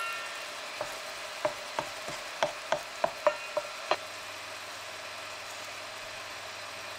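Egg, cabbage and carrot mixture sizzling in a frying pan, with a wooden spatula knocking and pushing against the pan in a string of about nine sharp taps over the first four seconds, then steady sizzling alone.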